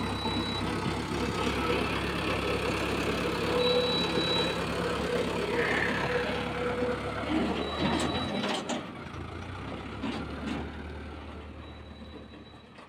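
Mahindra Arjun Novo tractor's diesel engine running steadily while it tows a trailer past, then fading as it moves away in the last few seconds. A short high beep sounds about every four seconds, and a few sharp knocks come about two-thirds of the way in.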